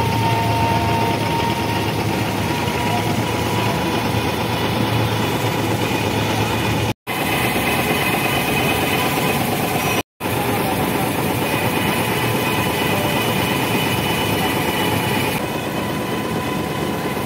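Wooden motor launch's engine running steadily under way, with water rushing along the hull. The sound cuts out briefly twice.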